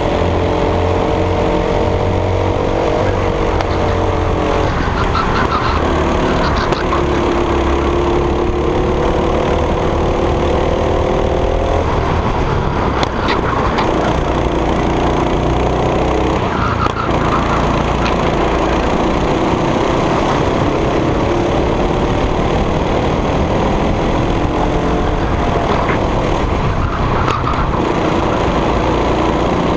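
Racing go-kart engine heard onboard at full race pace. Its pitch climbs slowly along the straights and falls away several times as the kart slows for corners.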